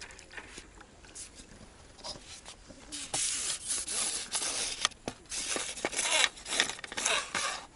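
Hooked roach splashing and thrashing at the water's surface as it is drawn in on a pole rod, a run of irregular splashes starting about three seconds in.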